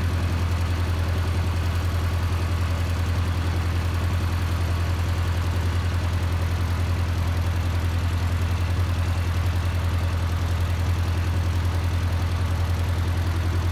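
Antique tractor engine idling steadily, with an even, low firing beat that holds the same pitch throughout.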